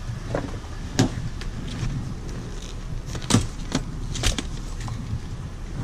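Scattered knocks and rattles from a mini trampoline's frame and cords as it is handled and pushed into a car, over a steady low rumble.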